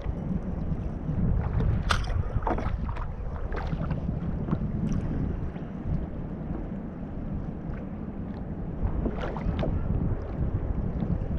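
Wind buffeting the microphone on a small kayak at sea, a steady low rumble with water moving around the hull. A few short, sharp knocks come about two seconds in and again near nine seconds.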